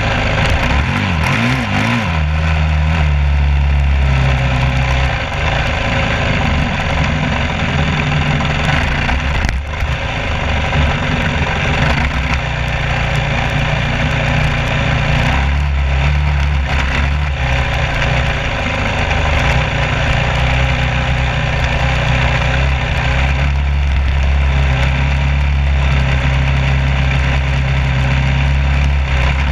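An engine running steadily, a low hum whose pitch shifts a few times.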